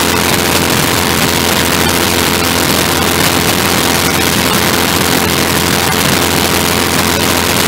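Engine of the MudSkipper ground-effect craft running steadily at cruise, a constant drone over a loud, even hiss of rushing air and water.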